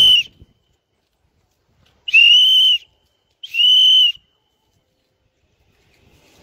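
Loud, steady, high-pitched whistle blasts blown by the flock's keeper to the pigeons in flight: one ends just after the start, then two more come about two and three and a half seconds in, each under a second long.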